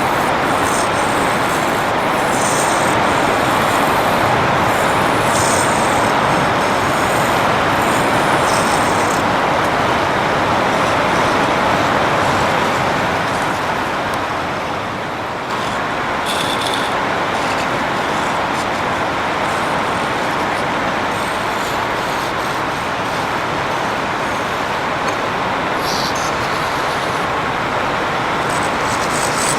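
Wood lathe running while the spinning wood is worked, giving a steady rushing noise that dips briefly about halfway through and then carries on.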